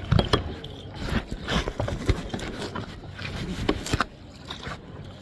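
Knocks and scrapes from a kayak being paddled, in a quick irregular run that is loudest at the start and eases off about four seconds in.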